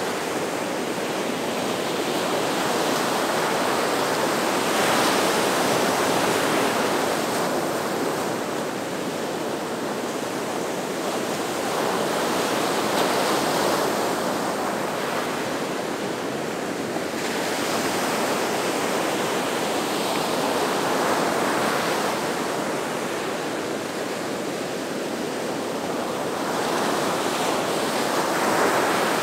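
Gulf of Mexico surf washing onto the beach: a steady rush of breaking waves that swells and eases every few seconds.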